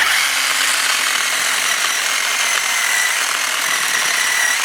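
Battery-powered chainsaw switched on and cutting into a thicker log: a steady high electric-motor whine over the rasp of the chain through wood, starting suddenly.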